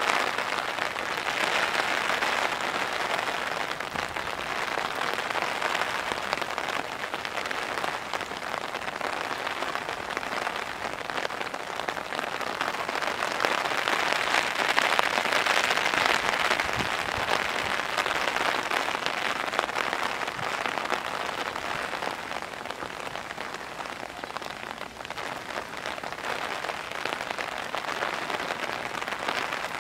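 Pouring rain falling steadily, a dense hiss of drops striking surfaces, growing a little louder for a few seconds near the middle.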